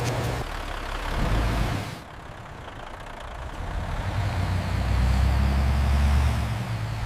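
A low, steady rumble of heavy machinery or a heavy engine. It drops away abruptly about two seconds in, then builds back up and is loudest shortly before the end.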